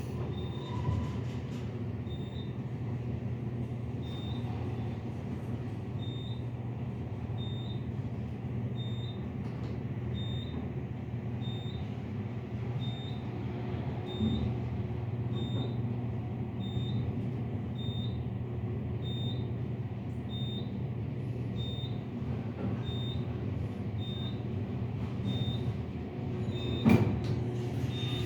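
Elevator running with a steady low hum while a short high beep repeats a little more than once a second; a single sharp knock near the end.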